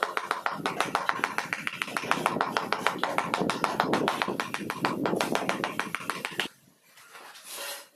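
Mallet tapping rapidly and evenly on a large ceramic floor tile, about seven or eight taps a second, bedding it into the mortar; the tapping stops about six and a half seconds in.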